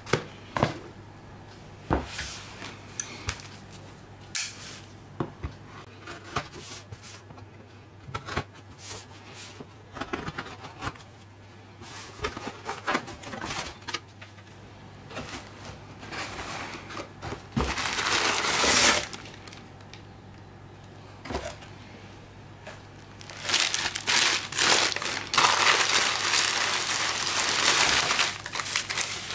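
Cardboard shipping box being handled and opened, with scattered knocks and taps, then loud crinkling of tissue paper and bubble wrap in bursts in the second half as the wrapped package is pulled out.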